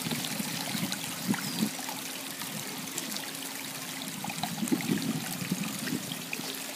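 Water trickling and splashing steadily down a small rock waterfall into a garden pond.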